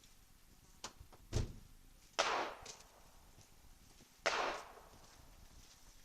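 Two pistol shots about two seconds apart, each a sharp bang with a short echoing tail, after a couple of lighter knocks.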